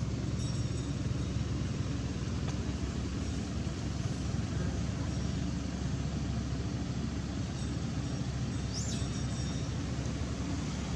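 Steady low background rumble, with one short high rising chirp about nine seconds in.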